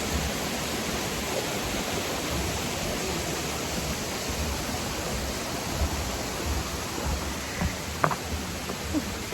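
Waterfall rushing steadily, a dense even noise of falling water. A couple of short clicks come near the end.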